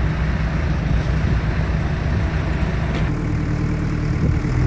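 Diesel engine idling steadily. About three seconds in, a click and a change to a closer, slightly higher steady engine tone, the idle of a Komatsu mini excavator.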